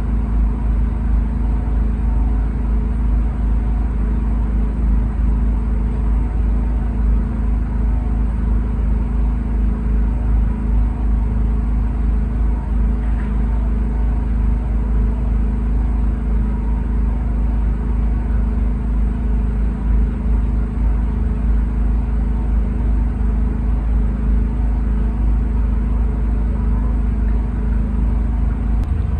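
Steady low rumble of a car running, with no distinct events.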